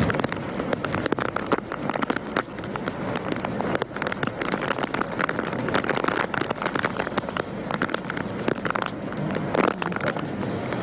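Heavy cyclone rain hitting surfaces close to the microphone: a dense, irregular crackle of drops over a steady rush of wind.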